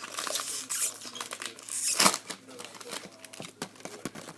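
Baseball card pack wrapper crinkling and tearing, and cards being handled and flicked through, with a sharper snap about two seconds in.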